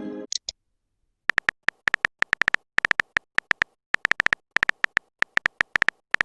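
Messenger-app sound effects: a message chime fades out at the start, followed by two short high pings. After about a second of silence come smartphone keyboard key-tap clicks in an irregular typing rhythm, about three to four taps a second with short pauses.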